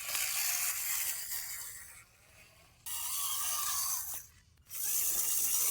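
Small electric motor and gearbox of a radio-controlled model running in three short bursts with a gear whirr, stopping and starting between them.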